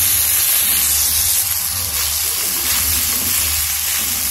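Broken wheat sizzling as it roasts in a hot pan, a steady hiss, while a spatula stirs it.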